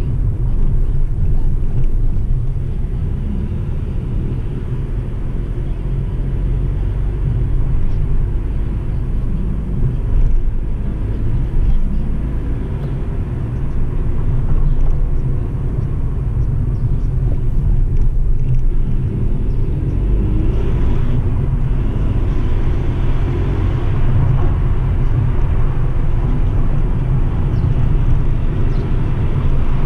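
A car driving along a town street: a steady low rumble of engine and road noise.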